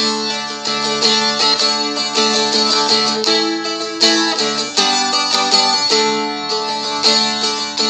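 Seagull Merlin strumstick, a small fretted dulcimer-style instrument, picked in a steady run of melody notes while open strings keep ringing beneath them.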